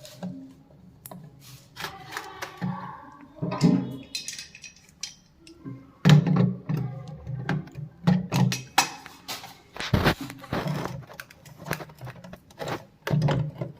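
Irregular clicks and knocks of plastic concealed-cistern flush parts being handled and fitted, over a low background murmur.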